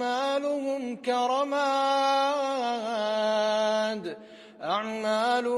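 A man reciting the Quran in melodic tajweed style, drawing out long held notes. There is a short pause for breath about four seconds in.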